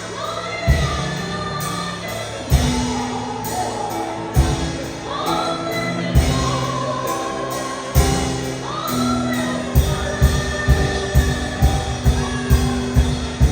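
Gospel worship music: a voice singing over sustained bass notes with a drum hit every couple of seconds, the drumming quickening to about two beats a second near the end.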